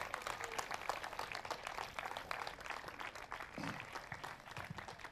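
Audience and judges applauding: a light, fairly faint patter of many hands clapping.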